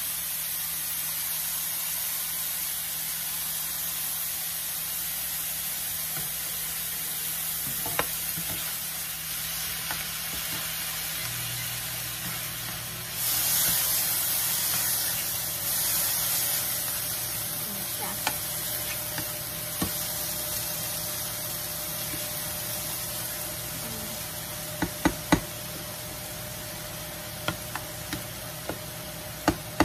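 Ground beef sizzling in a nonstick frying pan as it is stirred and broken up with a spatula. The sizzle swells for a few seconds about halfway through, and the spatula knocks against the pan several times near the end.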